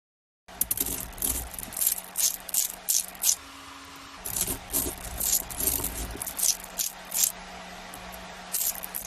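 Irregular sharp clicks and rattling, several a second, over a steady low hum; the clicking pauses briefly about three and a half seconds in.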